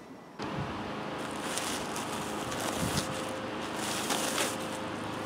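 Rustling and crinkling of a sheet of self-adhesive rolled roofing and its plastic release liner being handled, over a steady mechanical hum. The noise comes up suddenly about half a second in.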